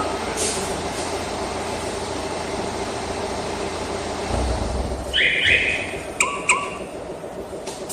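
Steady low rumble, then about five seconds in a short electronic chirp followed by two quick sharp beeps: an aftermarket car alarm's siren chirping to confirm a command from its remote.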